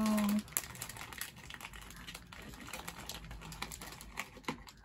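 A woman's drawn-out "oh no" trails off in the first half second. After that comes a run of small, irregular clicks and crinkles as a blind box's packaging is handled and squeezed in the hands to feel which figure is inside.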